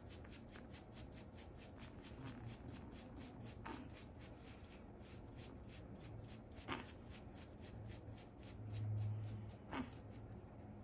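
Wooden-handled bath brushes scrubbing a small dog's wet fur and ears in quick, even strokes, about four or five a second, with a few sharper taps. A low hum swells briefly near the end.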